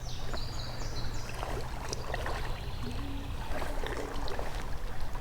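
Shallow creek water running and splashing around a wading angler, with scattered small clicks and knocks.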